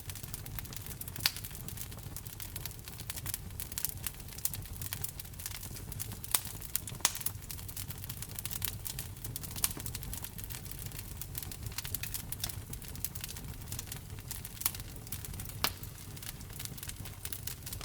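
Wood fire burning in a fireplace: a steady low rumble of flames with constant crackling and scattered sharp pops from the burning logs.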